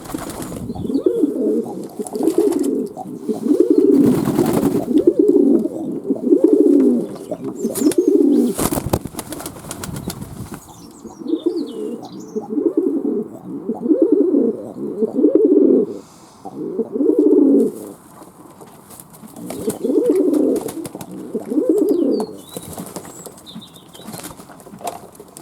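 Fantail pigeons cooing: repeated low, pulsing coos about a second each, in a series of bouts, with a few bursts of wing flapping in the first half.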